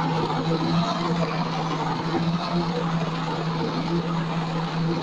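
Electric blender motor running steadily at a constant speed, blending milk, almonds, dates and banana into a drink.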